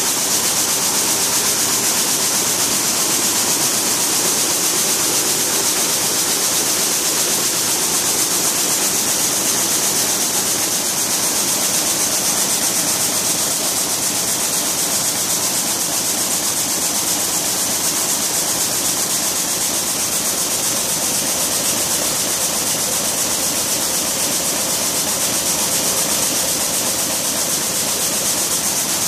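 Shuttleless weaving loom running steadily at speed, 471 rpm on its control display: a continuous loud machine noise with a strong high hiss.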